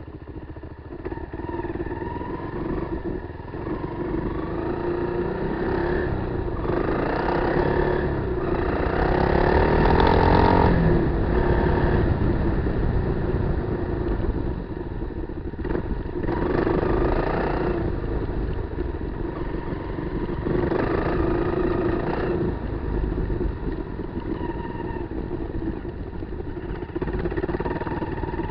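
Kawasaki KLR 250's single-cylinder four-stroke engine running under way off road, its revs rising and falling in several bursts of throttle, the loudest about a third of the way in.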